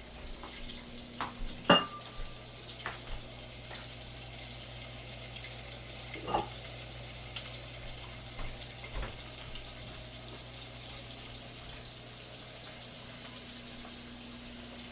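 Hot fat sizzling steadily in a pan on the stove, with a low steady hum underneath. A few short clinks and knocks of kitchen utensils cut in, the loudest about two seconds in.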